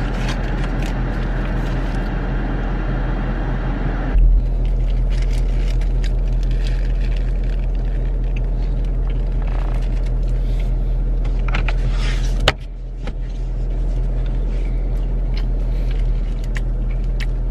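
Steady hum of a car idling, heard inside its cabin, with scattered clicks and crinkles from the paper sandwich wrapper and eating. A thump about four seconds in, and a sharp click about twelve seconds in.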